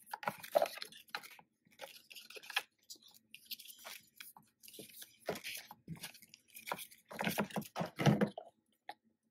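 Paper and stiff cardboard being handled: an album box and its paper inserts rustling, sliding and tapping in short irregular rustles, busiest about seven to eight seconds in.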